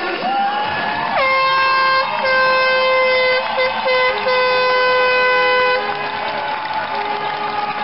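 Hockey arena air horn sounding, starting about a second in and holding one steady high tone for about four and a half seconds, with a few short breaks. Crowd clapping and cheering runs underneath.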